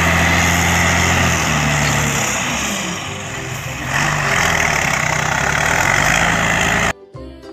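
Diesel engine of a Randon RK 430B dump truck running under load while the hydraulic hoist raises the bed, with red soil sliding out of the tipped body. The engine pitch dips and then climbs again about three to four seconds in, and the sound cuts off suddenly near the end.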